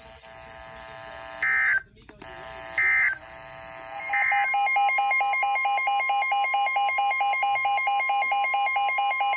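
NOAA Weather Radio alert signalling an incoming severe thunderstorm warning. It opens with three short bursts of digital SAME data tones about a second apart. From about four seconds in comes a loud, continuous alarm tone with a rapidly pulsing beep over it.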